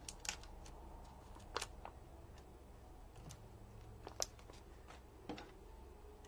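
Faint, scattered clicks and light rustles of paper handling as small foam adhesive dimensionals are picked and peeled from their backing sheet, about seven clicks spread unevenly, over a low steady hum.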